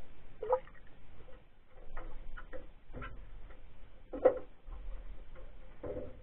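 Scattered clicks and knocks at irregular intervals, the sharpest a little over four seconds in, picked up by a camera under water.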